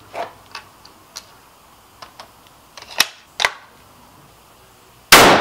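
Scoped bolt-action hunting rifle fired once near the end, a single loud shot with a short ringing tail. Before it, a few light clicks and two sharper clicks about three seconds in, as the rifle is handled on the bench.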